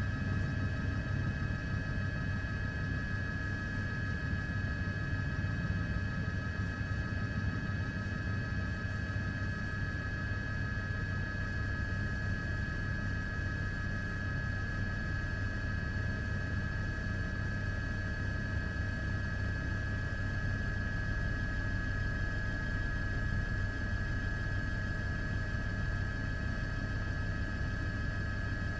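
Steady engine drone heard from aboard the filming aircraft: a constant low rumble with several high, steady whining tones over it, never changing.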